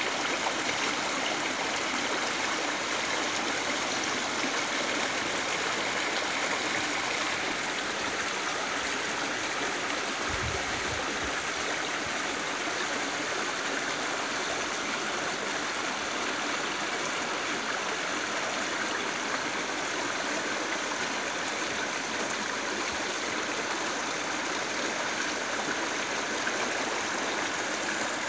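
Shallow river water rushing and gurgling over rocks in a small rapid: a steady, even rush.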